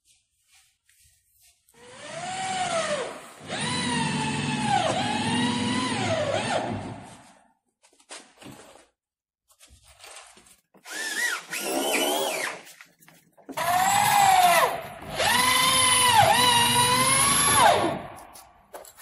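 Corded electric drill working into the plywood wall of a shipping crate. Its motor whine dips and recovers in pitch as it loads up. It runs in three spells: a long one, a short one about halfway through, and another long one near the end.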